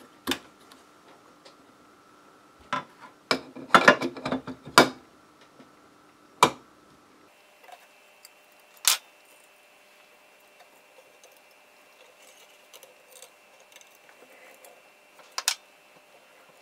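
Sharp clicks and knocks of wire spools being fitted and handled on an Ekko wire recorder, over the machine's faint steady hum. About seven seconds in the hum changes pitch as the recorder switches to winding, with two more single clicks after it.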